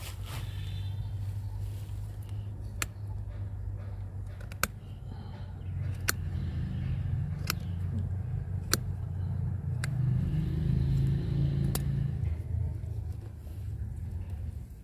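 A bonsai concave cutter biting and snapping off wood from a branch stub on a Wrightia trunk, giving about seven sharp clicks a second or two apart. Beneath them runs a steady low rumble that grows louder past the middle.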